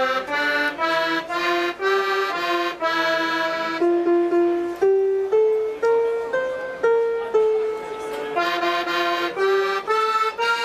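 A 105-key Decap fairground dance organ playing a tune, its reedy accordion-like voice carrying a melody in short notes with a few longer held ones in the middle.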